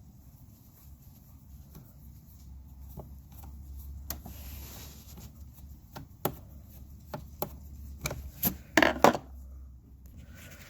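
Small metal clicks and scrapes of a screwdriver and terminal screw as the positive cable is undone and pulled off a scooter battery's terminal: scattered sharp clicks, sparse at first, growing louder and more frequent in the second half, with the loudest ones near the end.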